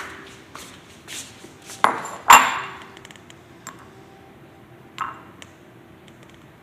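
Dishes and cutlery clinking: several sharp knocks that ring briefly, the loudest a pair about two seconds in and another about five seconds in.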